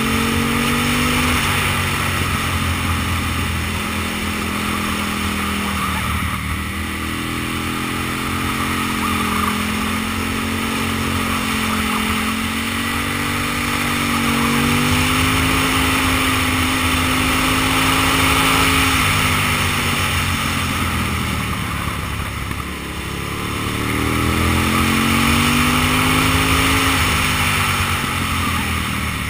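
Aprilia Tuono's 60-degree V-twin engine on the move through a run of corners, its pitch rising and falling again and again as the throttle is rolled on and off. Wind rushes steadily over the microphone.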